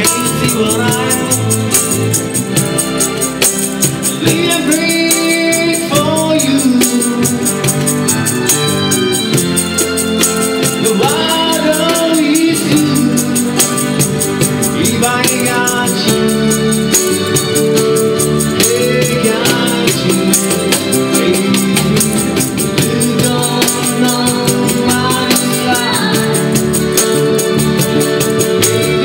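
Live band music: Roland keyboard and guitars with a steady tambourine shaken in rhythm and a singing voice carrying the melody.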